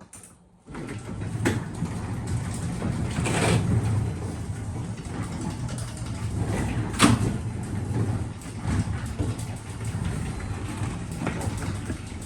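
Car door latch clicking and clunking as a door that won't latch is worked, likely because the latch is frozen. Three sharp clicks stand out, the loudest about seven seconds in, over a steady low hum.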